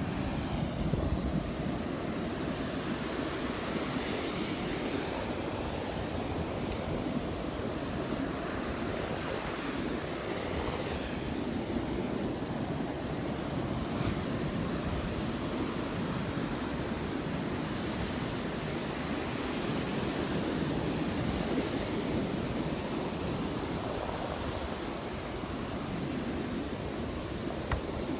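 Rough surf breaking on the beach, a steady rush of waves rising and falling, with wind on the microphone.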